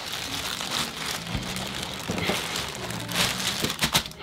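Plastic courier bag crinkling and rustling as it is handled, with a few sharper crackles about three to four seconds in.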